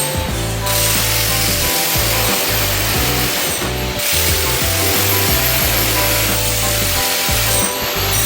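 Power tools working wood, with background music playing over them.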